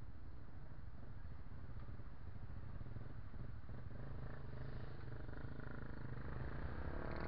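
Motorcycle engines idling in city traffic as a steady low rumble, growing a little louder near the end.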